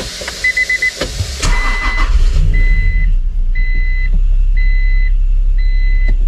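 Acura NSX 3.2-litre V6 started: it cranks briefly and catches about a second and a half in, then idles steadily, with a new ignition coil fitted to cure a cylinder misfire. A quick run of four beeps comes just before the start, and a chime beeps about once a second while it idles.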